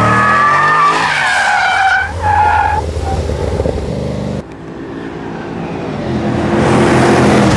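Tyres squealing in high, wavering tones as a cammed HSV VE Maloo V8 ute slides through a corner, its engine running underneath. About four and a half seconds in the sound cuts off, and then a V8 engine note rises and grows louder as the car accelerates.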